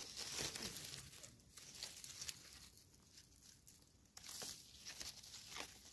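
Faint rustling and crackling of dry leaf litter with scraping of a knife blade as a wild mushroom is cut out of the ground and its stem scraped clean. The sound comes in short, irregular scratches.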